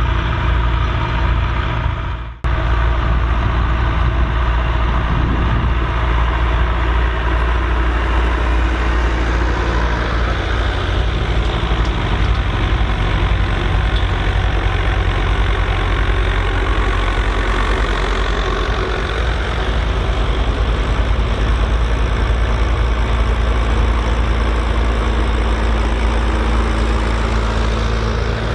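Volvo BM turbo tractor's diesel engine running steadily at a low, even speed, with a brief dropout about two seconds in where the sound cuts.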